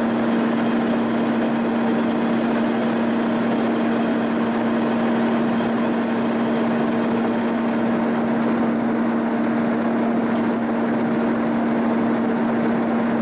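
Milling machine running a boring bar through a bore in a steel backhoe boom piece: a steady machine hum with one strong, even tone over continuous cutting noise.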